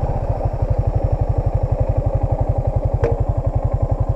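Yamaha Sniper 155's single-cylinder four-stroke engine running steadily at low revs, an even, rapid putter of about a dozen beats a second. A single short click comes about three seconds in.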